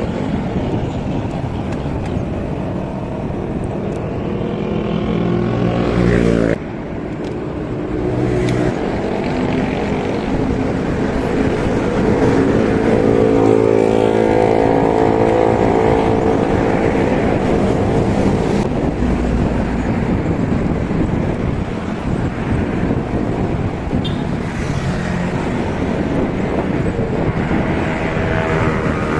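Motor vehicle engines passing close by on the road, their hum rising and falling over a steady rush of road noise. The sound drops off sharply about six seconds in.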